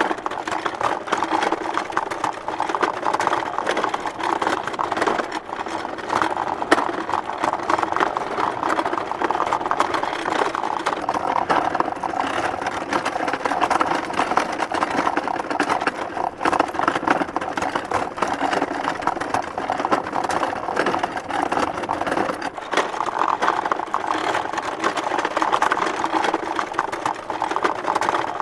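Small wooden handcart pulled along a bumpy dirt road: its wooden wheels and body rattle and bang in a dense, continuous clatter of rapid knocks.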